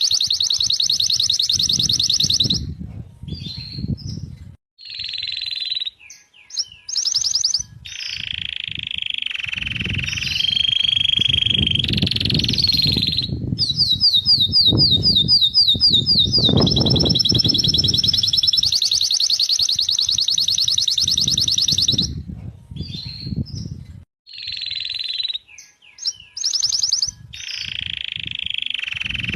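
Domestic canary singing a long song of fast, evenly repeated trills and buzzy rolls, broken by short pauses between phrases.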